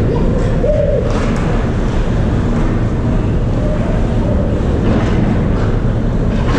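Ice hockey arena ambience: a steady low rumble with a few short hissing swishes, about a second in and again around five seconds in.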